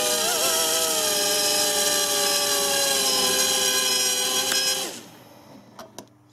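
Eachine QX90C micro quadcopter's four brushed coreless motors and propellers whining at high speed, the pitch sliding slowly lower as the failsafe gradually cuts the power after the transmitter signal is lost. About five seconds in, the whine drops away quickly as the motors spin down and stop, followed by a couple of faint clicks.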